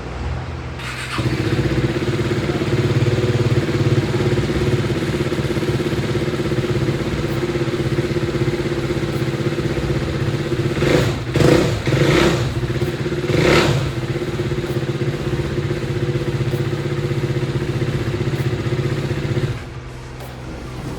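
KTM Duke 390's 373 cc single-cylinder engine running, revved three times in quick succession a little past the middle. It gets louder about a second in and quieter near the end. The owner calls the engine's noise awkward and weird.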